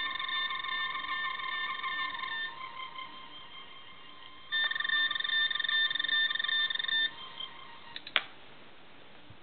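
Toy medical tricorder playing its electronic warbling scanner sound effect in two runs, the second louder, then a sharp plastic click as its lid is snapped shut near the end.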